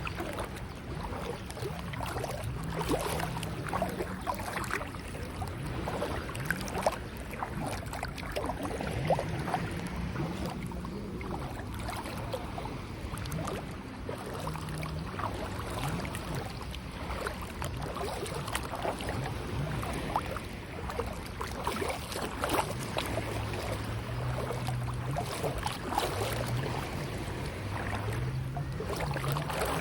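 Sea water sloshing and splashing in many small irregular bursts, with wind on the microphone and a low hum that comes and goes, shifting in pitch.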